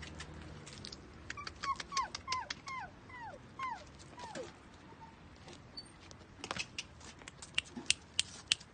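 Young dog whimpering: about seven short whines in quick succession, each falling in pitch. A run of sharp clicks follows in the second half.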